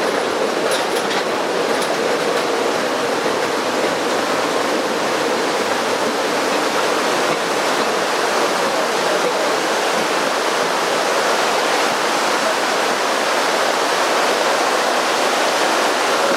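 Steady rushing noise of the Postojna Cave tourist train ride: the open cars running on the narrow-gauge cave railway, with a few faint clicks in the first couple of seconds.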